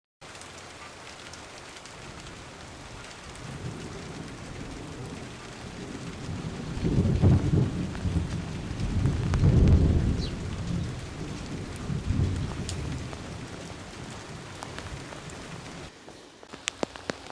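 Steady rain hissing, with low rolling thunder rumbles that build about a quarter of the way in, swell twice around the middle and die away near the end.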